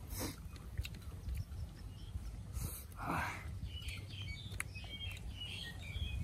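Small birds chirping in short, high notes in the background, thickening through the second half, over a steady low rumble with scattered faint clicks and a soft rush about three seconds in.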